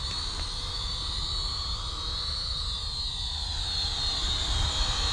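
Syma X5UW toy quadcopter's small brushed motors and propellers whining steadily in flight, the high whine drifting slightly in pitch as the motors adjust. A low rumble sits underneath.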